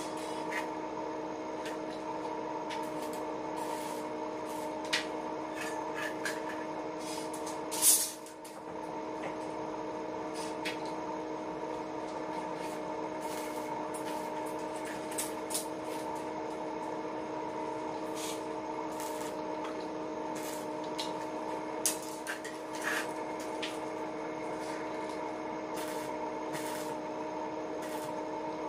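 Stick (arc) welding on a steel window grille: a steady machine hum under scattered short crackles and clicks, with one loud sharp knock about eight seconds in.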